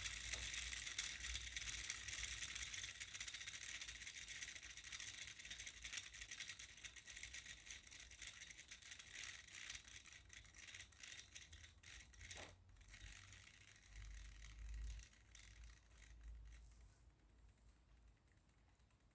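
Small homemade pulse motor switched by a reed switch, spinning with rapid light clicking and rattling. The clicks come further apart and fainter as it runs down, and they stop about seventeen seconds in.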